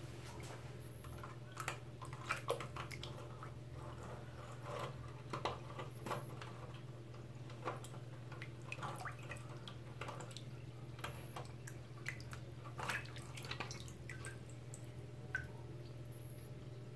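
Water dripping and splashing in a clogged sink as a 3D-printed plastic drain cleaner is worked down the drain, with scattered small clicks and splashes. A steady low hum runs underneath.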